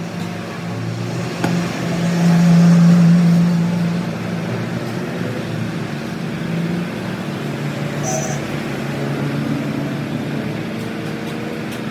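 A motor running with a steady hum, loudest between about two and four seconds in.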